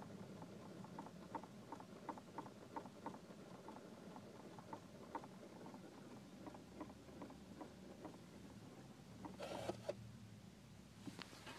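Faint, irregular clicking and ticking, a few clicks a second, over a low steady hum: the noise that a 2005 Subaru Legacy GT's air-conditioning system makes after it is switched off. There is a brief louder rustle near the end.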